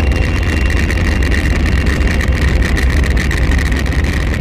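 Scroll saw cutting through a stack of micarta knife-handle scales, its reciprocating blade running with a steady, fast, even chatter.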